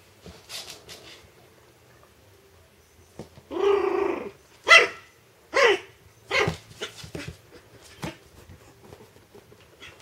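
Young puppies barking: a longer drawn-out bark about three and a half seconds in, then a few short, sharp, high yaps roughly a second apart, trailing off into smaller yips.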